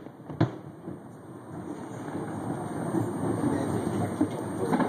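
A firework shell bursting in the distance with one sharp bang about half a second in. Then comes a steady rumble of outdoor city background noise that slowly grows louder.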